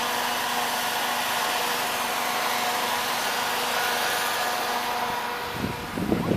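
Snow cannon running: a steady fan-like whoosh with a faint even hum. Near the end, wind buffets the microphone in low gusts.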